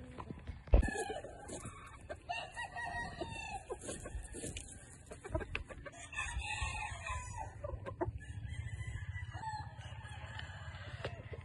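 Gamecock roosters crowing and clucking, with a sharp thump about a second in and a steady low rumble in the last few seconds.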